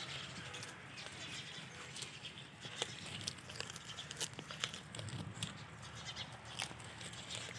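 Goats feeding on ber (jujube) leaves: scattered light clicks and rustles over a faint steady background.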